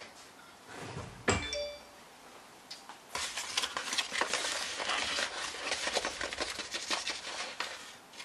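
A single metallic clink with a short ringing tone about a second in, then a plastic zip-top bag of flour crinkling and rustling steadily as it is picked up and opened.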